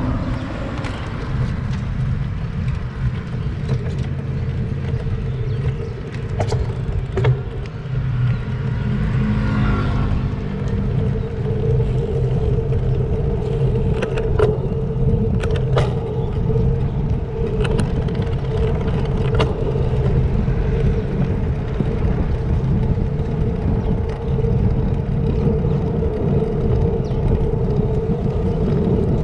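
Wind and road noise on a GoPro Hero7 riding on a road bike in motion, a steady rumble with a steady hum coming in about ten seconds in and a few sharp clicks.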